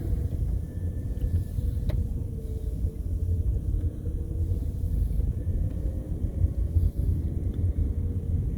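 A car being driven, heard from inside the cabin: a steady low rumble of engine and road, with one sharp click about two seconds in.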